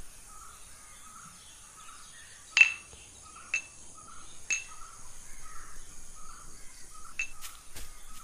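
Outdoor insect chorus, a soft chirp repeating about twice a second over a faint high steady drone. Four short sharp clicks cut through it; the first, about two and a half seconds in, is the loudest.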